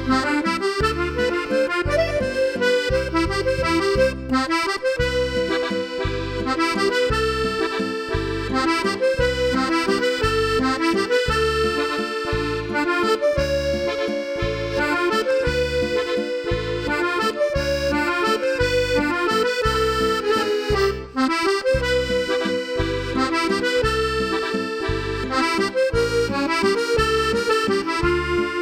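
Accordion playing a musette-style waltz: a melody over a steady, evenly pulsed bass and chord accompaniment.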